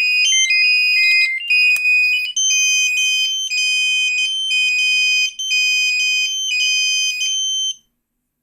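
Fire alarm system beeping in alarm with its smoke detectors tripped. At first several high electronic beep patterns at different pitches overlap, then they settle into an even beep about twice a second, which cuts off abruptly near the end.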